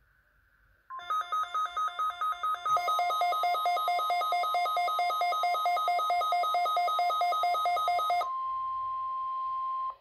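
Midland weather alert radio sounding its alarm for a received Required Weekly Test. About a second in it gives a rapid run of electronic beeps, which turns into a continuous warbling two-tone alarm. Near the end this gives way to a steady single tone of about 1 kHz, the weather radio warning alarm tone, which cuts off suddenly.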